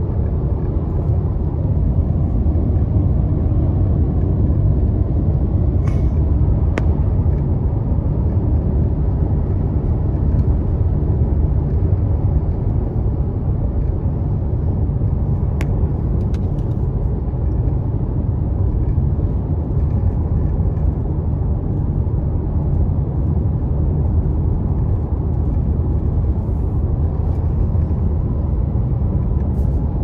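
Steady rumble of a car driving at highway speed, heard from inside the cabin: tyre and road noise with the engine underneath, plus a few faint clicks.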